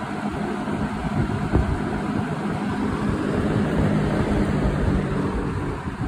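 1970s Electrohome 20-inch box fan (model 652-1-C) running: a steady rush of air from the spinning blades, with a low motor hum underneath.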